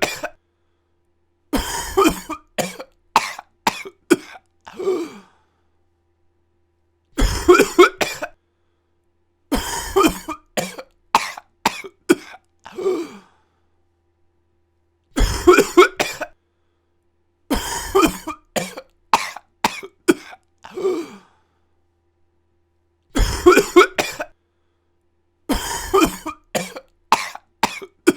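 A person coughing in repeated fits: each fit is a short hard burst of coughs followed by a run of four or five coughs that trails off, with dead silence of a second or two between fits.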